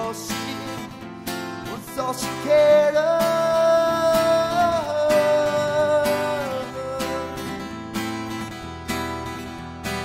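A man singing a country-style song over a strummed Takamine acoustic guitar. His voice holds one long note in the middle and drops out a few seconds before the end, leaving the guitar strumming alone.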